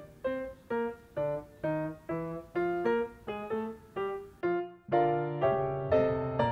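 Background music: a piano-like keyboard playing a run of separate notes, about three a second, with a short break a little past the middle before fuller, louder notes come back.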